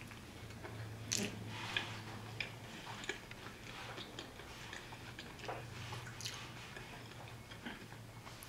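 A person chewing a mouthful of burger, with irregular small wet mouth clicks.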